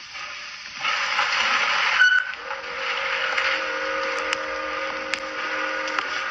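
Steam train: a hiss of steam starts about a second in, then a steady whistle with several tones begins about two and a half seconds in and holds.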